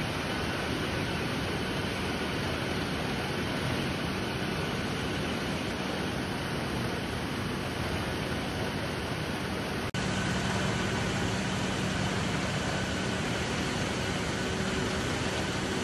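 Rubber-milling machinery in a rubber processing factory running steadily: the even mechanical din of the crushers and crepe-rolling mills working wet raw rubber. About two-thirds of the way in the sound changes abruptly, and a steady low hum stands out from then on.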